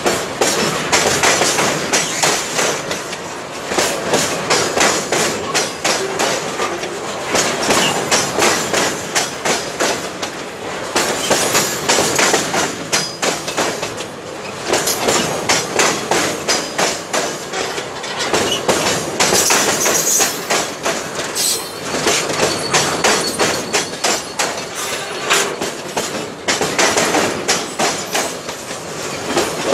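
Tank wagons of a metre-gauge freight train rolling past close by: a continuous clatter of steel wheels over rail joints, with a dense run of clicks and knocks that swells and eases as the wagons go by.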